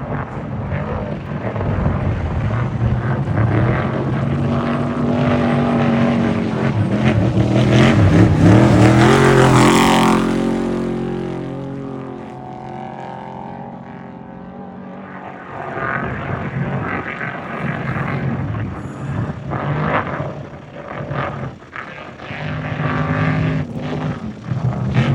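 Off-road race vehicles' engines revving hard as they pass. One builds to its loudest about ten seconds in and fades away. Then another comes through, its throttle rising and dropping.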